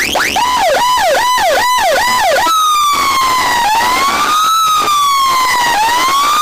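Loud electronic siren effect played through a large DJ loudspeaker rig. It starts as a fast yelp of quick falling sweeps, about two and a half a second, then about two and a half seconds in switches to a slow wail that falls and rises about once every two seconds.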